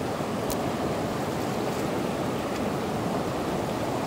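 Steady rush of a shallow river flowing over rapids, heard close to the water surface, with a single click about half a second in.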